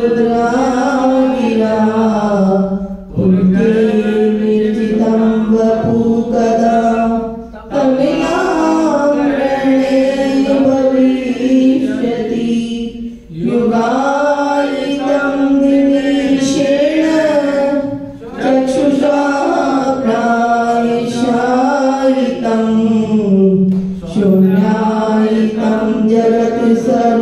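Devotees singing a devotional kirtan chant together, in phrases of about five seconds with long held notes and short breaks between them.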